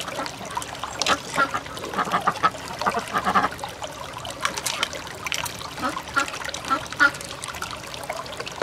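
Wet, irregular squelching and clicking as fingers squeeze and pull apart the soft flesh of an opened freshwater pearl mussel, over a light trickle of water.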